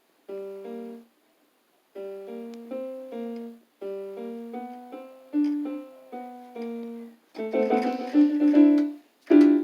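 Electronic keyboard played in short phrases of single notes with pauses between them, then many keys mashed at once in a loud jangling cluster near the end, followed by one more loud note.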